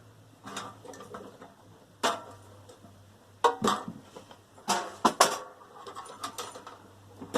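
Metal parts of a dismantled microwave oven being handled and tossed: a string of sharp clanks and rattles, the loudest about two, three and a half, and five seconds in.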